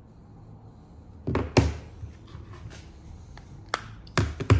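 Folding smartphones being handled and set down on a wooden tabletop. Two solid thunks come about a second in and two more near the end, with lighter taps and rubbing between them.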